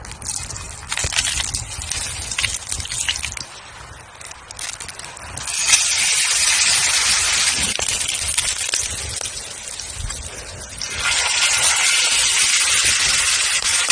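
Wood fire crackling with scattered clicks, then a steak going into hot olive oil in a cast-iron skillet about six seconds in and sizzling loudly. The sizzle eases for a moment around ten seconds in, then comes back strongly.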